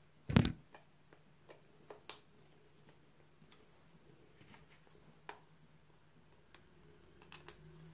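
Handling noise from a wireless charging pad's plastic housing and a screwdriver: one loud knock about half a second in, then scattered light clicks and taps.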